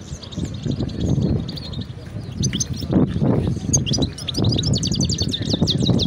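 Caged songbird singing rapid, high twittering and trilling phrases. The song grows louder and busier from about two seconds in, over a low background din.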